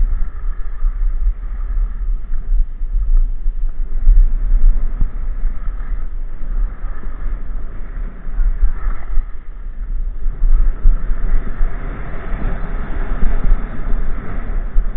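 Wind buffeting the microphone during a fast downhill ski run: a loud, fluttering low rumble, with the hiss of skis scraping over packed snow, which grows louder after about ten seconds.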